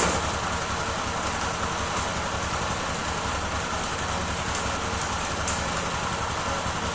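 Honda CG Titan single-cylinder motorcycle engine running steadily in first gear, with a sharp click right at the start.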